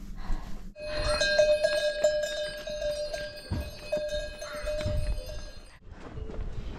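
Metal bells ringing over and over in a quick, uneven pulse for about five seconds, starting and stopping abruptly.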